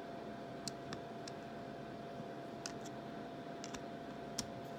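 A few short, faint clicks of small metal parts as a padlock and its core are handled on a desk, over a steady hiss with a faint high hum.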